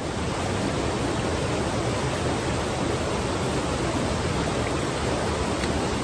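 A mountain stream rushing over boulders and a small cascade: a steady, even rush of water.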